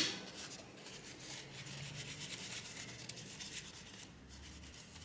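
Alcohol-dampened toilet paper rubbing over a laptop's CPU and GPU chips in scratchy wiping strokes, clearing off old, dried thermal paste. It starts abruptly at its loudest.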